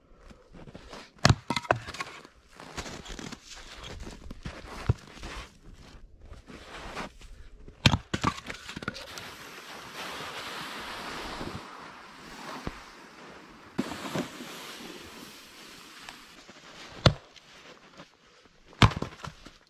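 Axe splitting firewood on a chopping block: sharp cracking strikes, a quick cluster just after the start, one at about eight seconds and two more near the end. In between, a few seconds of steady rushing scrape as a sled loaded with logs slides over snow.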